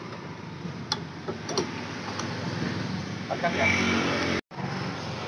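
A few light metallic clicks and clinks as a scooter's CVT clutch bell and centrifugal clutch shoe assembly are handled and seated on the shaft by hand, over a steady low hum, with a louder spell of noise late on.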